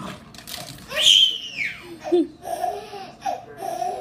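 A baby laughing: a loud high squeal about a second in, then a string of short, quick laughs.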